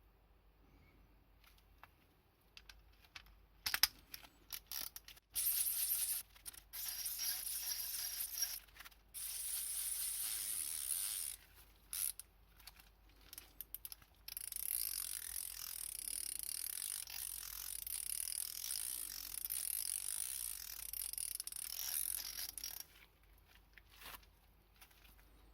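Fine-toothed 3/8-inch-drive ratchet mechanism being spun. A few separate clicks come first, then long runs of rapid, even ratcheting so fine that the clicks merge into a steady high buzz, with short pauses between the runs.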